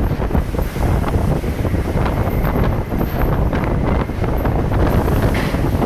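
Strong wind buffeting the microphone on a ferry's open deck, a loud, uneven rumble with irregular gusty flutter.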